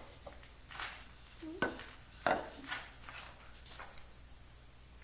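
A few light, separate knocks and clicks of objects being handled and set down, over a faint low hum.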